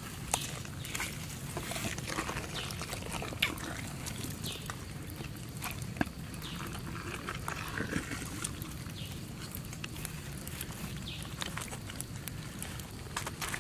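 Wet squelching with many small sticky clicks and smacks as hands pull a mass of roe out of a large fish's opened belly.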